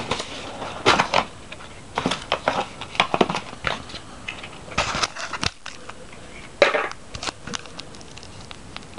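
Product packaging and its contents being handled: irregular rustles and small clicks of cardboard, paper and plastic.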